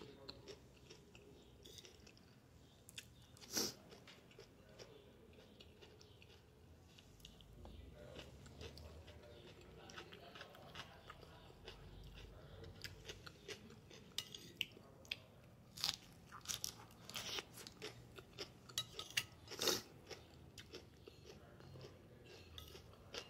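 A person chewing and biting food close to the microphone, a home-cooked plate of salad lettuce, tomato and fried pork chop: faint mouth clicks and small crunches, sparse at first and much busier in the second half, with a couple of louder crunches.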